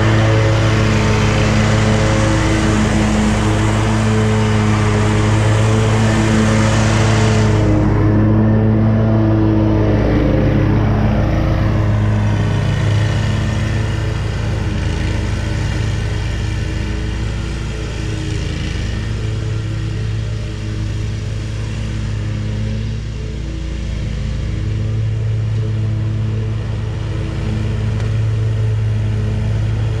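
Hustler zero-turn mower's engine running steadily while mowing, passing close by and then pulling away. About eight seconds in, its sound turns suddenly duller, and it fades slightly before growing a little louder again near the end.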